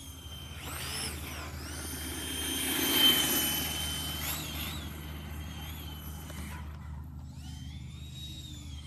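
Electric RC car with a ducted-fan (EDF) jet mounted, its motors whining high and gliding up and down with the throttle. It is loudest about three seconds in, a steady high whine with a rush of noise as it passes close, then drops off and whines up and down again near the end.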